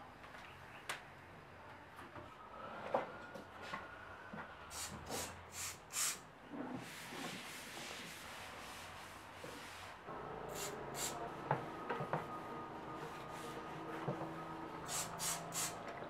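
Close-up household cleaning sounds: light knocks as things are set down on white wooden furniture, and a cloth rubbing and wiping the surfaces, with several groups of short hissy swishes.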